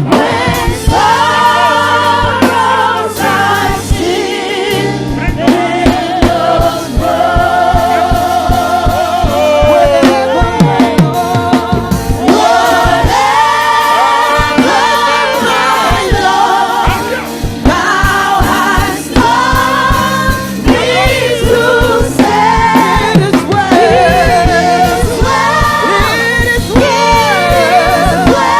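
Gospel worship song: a lead voice and choir singing over a live band with bass and a steady drum beat.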